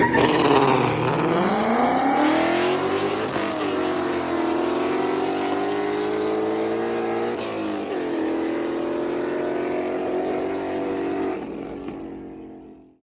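V8 car under hard acceleration, its exhaust note climbing in pitch and breaking at gear changes about three and seven seconds in, then holding fairly steady before fading out near the end.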